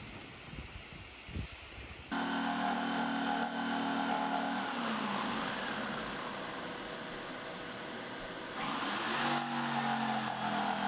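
Corded electric jigsaw cutting a sink opening in a countertop board, with a vacuum cleaner running, its hose held at the blade to pick up the dust. The motors start suddenly about two seconds in and run steadily, easing a little in the middle and getting louder again near the end.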